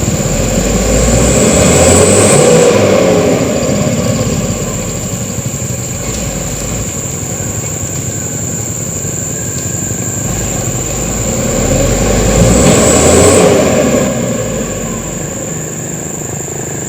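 Mitsubishi Canter truck's diesel engine working hard, revving up and easing off twice, about a second in and again about twelve seconds in.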